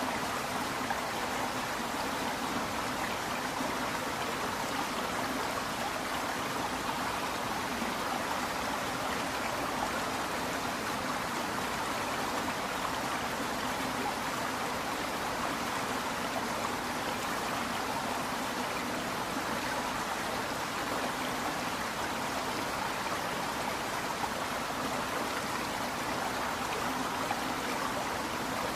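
Water running steadily down a tiered waterfall, an even, unbroken splashing rush.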